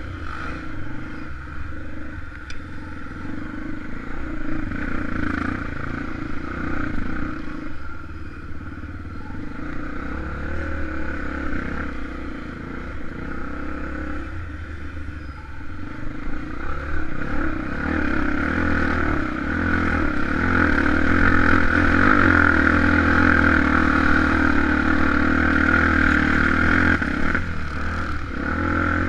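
Honda XR250 Tornado single-cylinder four-stroke trail bike engine running under way, getting louder from about two-thirds of the way through.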